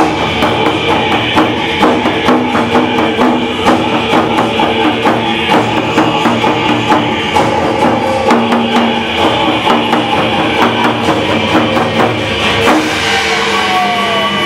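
Loud music with a large Japanese-style barrel drum struck in a fast, steady beat, over sustained backing tones.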